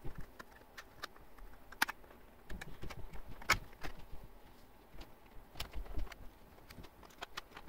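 Cutters snipping through the thin 3D-printed plastic sections that join three printed parts. There are three sharp clicks a second or two apart, with a few smaller clicks and light handling of the plastic between them.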